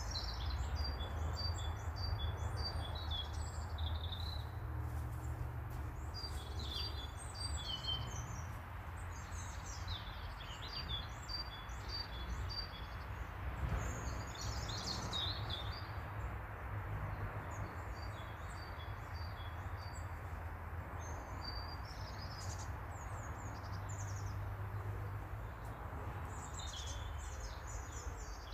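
Birds chirping and twittering in short, high bursts, with a steady low rumble underneath.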